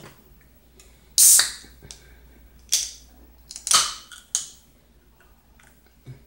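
Pull tab of a carbonated soda can being worked open: a sharp crack and hiss of escaping gas, then several shorter hissing bursts over the next few seconds as the tab is pushed down.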